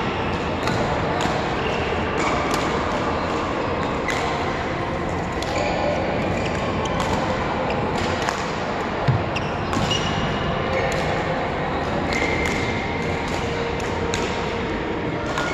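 Badminton rally: racket strings hitting the shuttlecock with sharp clicks every second or two, with shoes squeaking on the court floor and the steady background of a large sports hall.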